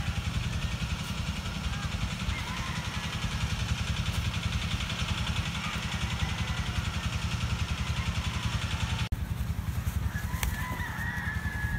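A small engine running steadily in the background, with chickens calling faintly over it; a clearer, falling call comes near the end.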